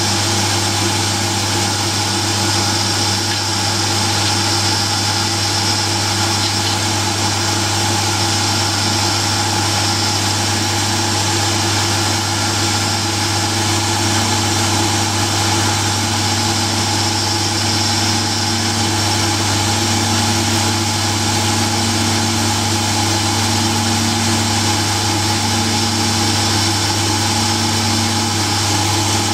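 Belt-driven milling machine running steadily at about 2000 RPM, a homemade carbide flow drill spinning with its point pressed into a hard steel file to friction-heat its way through.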